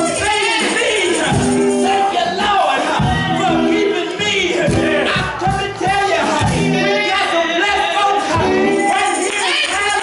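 Gospel church music: singing over instruments, with a tambourine and a steady beat.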